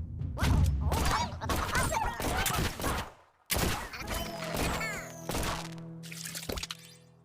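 A busy string of knocks, cracks and short squeaky glides mixed with music, breaking off briefly about three and a half seconds in and then going on over held music tones that fade near the end.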